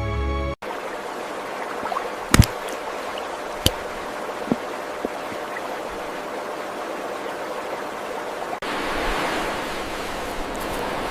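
Music cuts off about half a second in, giving way to steadily flowing stream water. A few sharp clicks come between two and five seconds in. At an abrupt change about eight and a half seconds in, the water turns louder and brighter.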